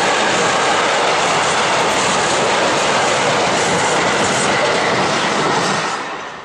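Freight train of tank-container and container wagons passing at speed: a steady, loud rush and rumble of steel wheels on the rails, dying away near the end.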